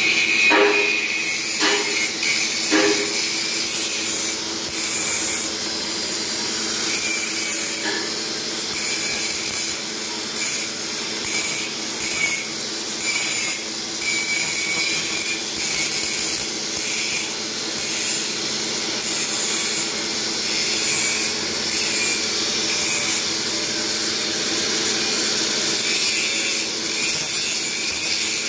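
Handheld angle grinder running and grinding steel. Its level rises and falls in pulses as the disc bites and eases off, over a steady high motor whine. There are a few short knocks in the first few seconds.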